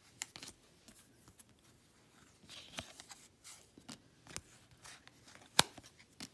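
Quiet handling of a stack of cardboard baseball trading cards as they are flipped through one by one: soft sliding swishes and light clicks, with one sharper snap near the end.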